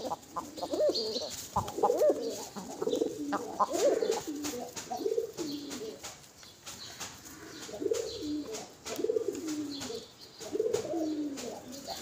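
Feral rock pigeons cooing again and again, low rising-and-falling coos about once a second, with light sharp clicks of beaks pecking grain from a bare palm.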